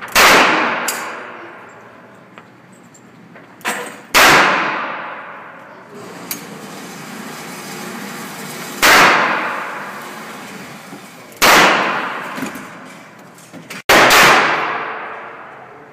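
Revolver shots fired one at a time every few seconds, each with a long echoing decay off the walls of an indoor range; a shorter, quieter bang comes just before the second shot. The last shot, near the end, is from a second handgun.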